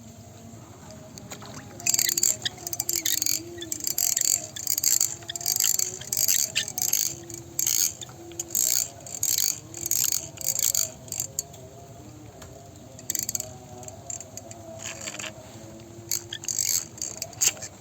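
Fishing reel ratcheting in repeated short, irregular bursts, starting about two seconds in, pausing briefly past the middle, then going on again.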